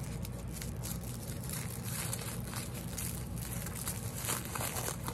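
Small plastic accessory packet crinkling in irregular crackles as fingers work it open, over a steady low hum.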